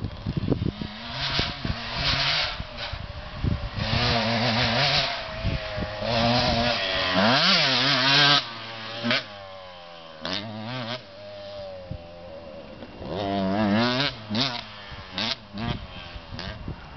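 KTM 125 EXC two-stroke single-cylinder engine revving hard and backing off again and again as the bike is ridden. The pitch climbs steeply and drops sharply about eight seconds in, and the engine is quieter between about ten and thirteen seconds before revving hard again.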